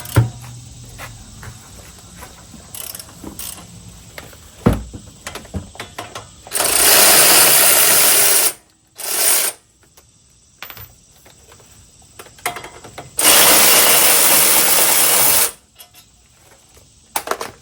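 A power tool runs in two bursts of about two seconds each, with a short blip between, backing out the two front brake caliper bolts. Light clicks and clinks of tools and parts being handled come between the bursts.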